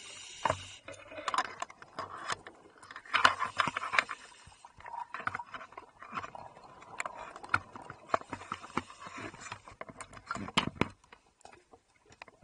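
Underwater sound of a scuba diver breathing through a regulator: bursts of exhaled bubbles with many irregular sharp clicks and knocks, dying down near the end.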